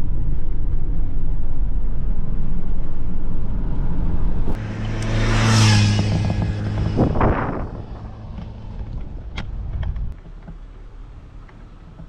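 Steady low road rumble inside a moving car. About four and a half seconds in it gives way to a motorcycle passing close by, its engine note swelling and then fading away, followed by wind and tyre noise from the car.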